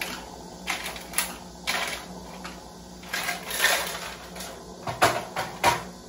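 Ice cubes dropped into a cup, a series of about nine sharp clinks at uneven intervals, the loudest few near the end.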